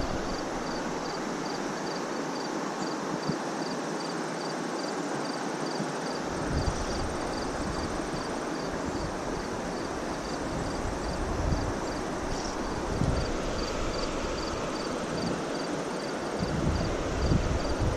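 An insect chirping in an even, steady rhythm of about two short high chirps a second, over a steady outdoor hiss. Occasional low bumps come in from about six seconds in.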